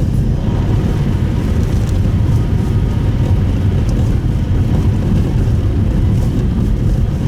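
Steady low rumble of tyre and road noise inside the cabin of a Subaru Impreza Sport driving on a snowy road.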